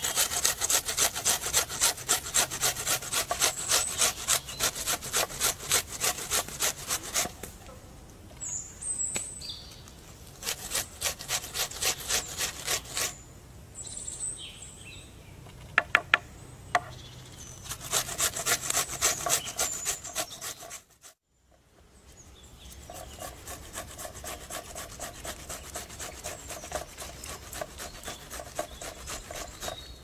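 Vegetables rubbed hard against a flat metal hand grater resting on a wooden board: rapid rasping strokes, several a second, in runs with short pauses. In the last third the strokes turn softer and more even, as wetter produce such as tomato is grated.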